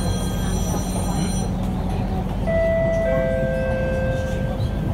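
Siemens C651 metro train running, heard inside the carriage: a steady rumble of wheels and running gear. About halfway through, a steady two-note whine joins it and lasts about two seconds.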